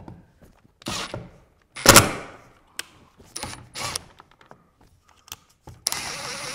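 Milwaukee cordless drill driving the screws of a metal box cover in short trigger bursts, then a longer run with a high motor whine near the end. The loudest burst, about two seconds in, starts with a sharp knock.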